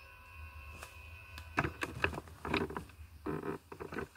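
Norfolk Southern diesel freight locomotive passing close by: a steady low engine rumble, then from about a second and a half in, loud irregular clattering and rushing bursts as it goes past.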